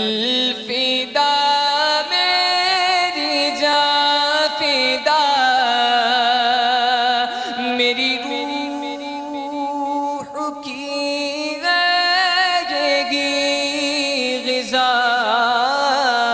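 A man singing a hamd, an Urdu devotional hymn in praise of God, in naat style. He holds long, ornamented notes with a wavering vibrato, and a new phrase begins every few seconds.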